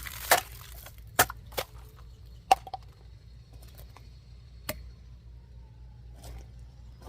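A multitool's knife blade cutting into a plastic bottle: a series of sharp cracking hits, five loud ones in the first five seconds and a few fainter ones after.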